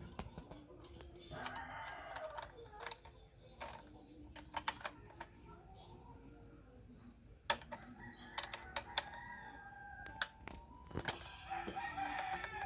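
A rooster crowing twice, once a second or so in and again near the end, with scattered sharp clicks and knocks in between.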